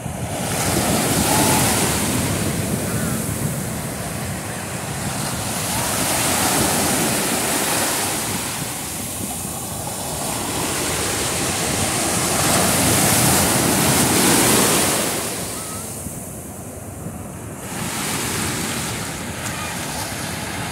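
Ocean surf breaking and washing up a sandy beach: a steady rushing that swells and eases several times as successive waves come in.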